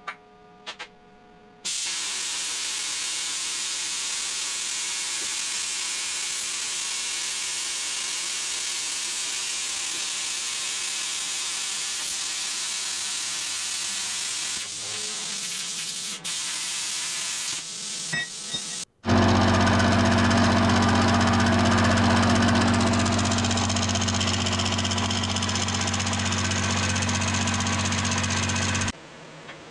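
Handheld plasma cutter cutting steel plate, a steady hiss lasting about seventeen seconds. It is followed by a milling machine running with a steady low hum as its cutter works a steel bar, stopping shortly before the end.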